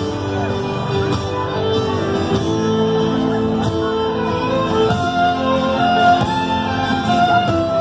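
Live Irish band playing a tune with a steady beat: a fiddle carries the melody over guitar and upright double bass.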